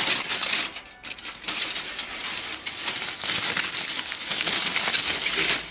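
Aluminum foil wrapped over HVAC duct board crinkling and crackling as it is handled, with a brief break about a second in.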